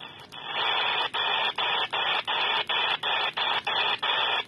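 Quansheng UV-K5(8) handheld transceiver, modified for the 27 MHz CB band, putting out receiver static in single-sideband mode as it steps up through its memorized channels. The hiss swells about half a second in and is cut by a short gap at each channel change, about three times a second.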